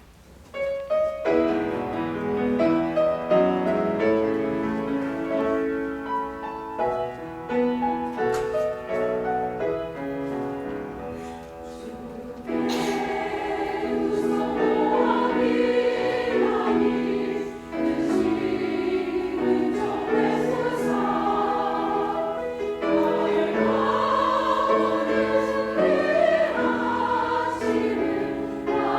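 Church choir performance: an instrumental accompaniment plays an introduction of separate stepped notes, then the choir comes in, louder, about 13 seconds in, singing a sacred choral piece over the accompaniment.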